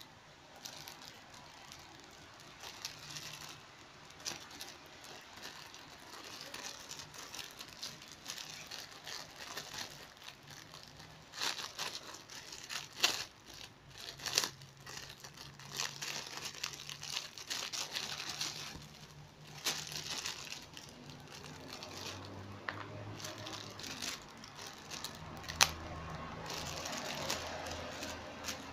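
Clear plastic packaging bag crinkling and crackling as hands handle and open it, with irregular sharp crackles among the rustling.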